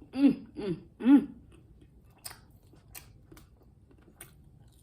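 Three short vocal sounds, each rising and falling in pitch, in the first second and a half. After that, only faint wet clicks of someone chewing food.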